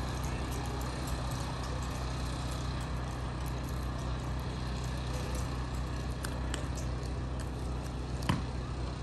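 Steady low hum under faint, scattered clicks of a drill team handling its rifles, with one sharp knock about eight seconds in.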